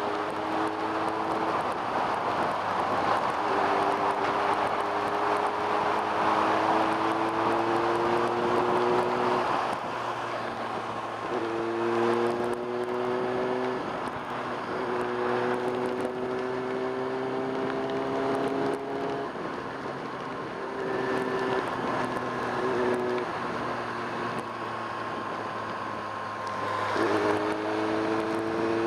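1995 Kawasaki Ninja ZX-6R inline-four engine under way, its note climbing slowly in each gear and dropping back at several gear changes, over a steady rush of wind and road noise.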